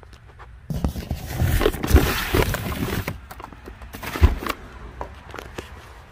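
Heavy cardboard firework cakes being handled and shifted: a stretch of rustling and scraping with dull thumps, then a sharper thump about four seconds in as a box is set down.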